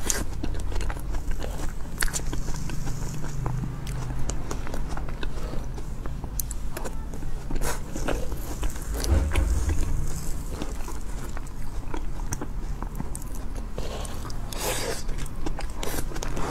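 Close-miked eating sounds of soft mousse cake: small wet mouth clicks and smacks as spoonfuls are chewed, with a metal spoon touching the lips and cake, over a steady low hum.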